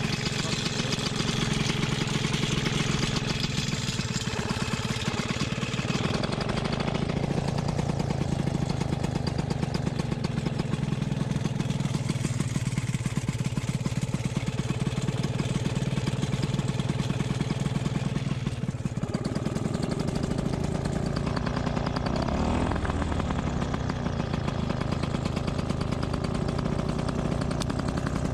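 Paramotor engine idling steadily behind the pilot.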